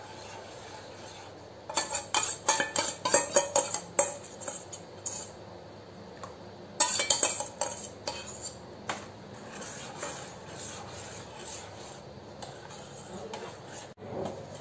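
Steel spoon stirring milk and ground sama rice in a cooking pan, scraping and clinking against the pan in two runs of quick strokes, about two seconds in and again around seven seconds, with a few single knocks between; a steady low hiss underneath. The mixture is stirred continuously so that no lumps form as it thickens.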